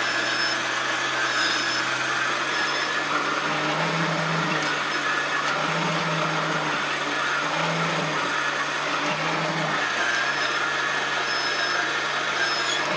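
Small electric motor of a 1979 Kenner Betty Crocker toy juicer-blender running steadily, turning the citrus reamer while half an orange is pressed down onto it. The hum's pitch steps up and down a few times as the pressure on the fruit changes.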